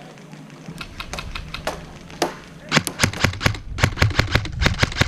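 Airsoft guns firing: scattered single shots at first, then rapid strings of shots at about seven a second from a little under three seconds in.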